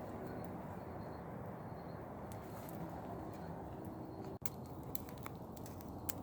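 Wood fire crackling under a hanging cooking pot: scattered sharp pops and snaps over a steady low rushing noise.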